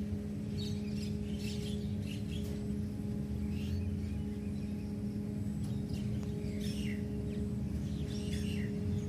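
Birds giving short chirping calls again and again, over a steady low hum.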